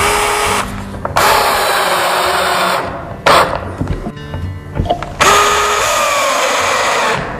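Cordless drill with a square-drive bit driving 3-inch screws through a steel L bracket into a wall stud. It runs in several spurts, the longest about two seconds each, with a short burst about three seconds in.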